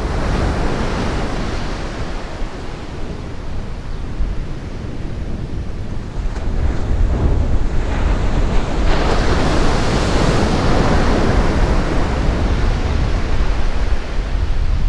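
Sea surf breaking and washing up a sandy beach, with wind buffeting the microphone in a steady low rumble. One wave rushes in at the start, and a bigger one breaks and washes in from about nine seconds in, louder than the first.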